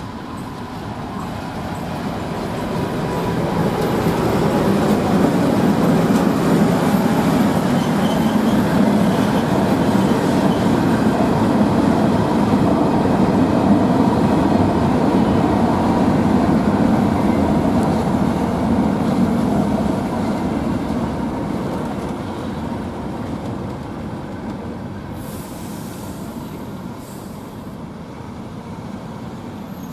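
Diesel locomotive hauling a long train of open freight wagons past at low speed. The engine and the rolling wheels build up, hold loud for a stretch, then fade as the train moves away.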